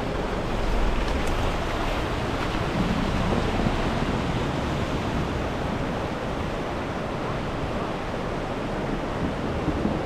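Shallow, fast-flowing river rushing steadily over rocks and a granite slab: an even, unbroken rush of water.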